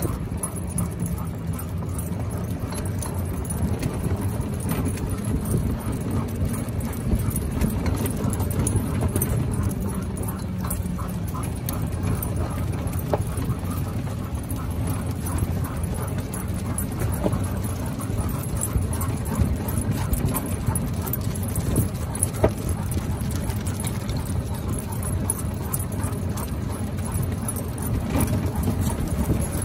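Two leashed huskies running on pavement: quick pattering of paws and claws with the jingle of collar tags and leash clips, over a steady low rumble of motion.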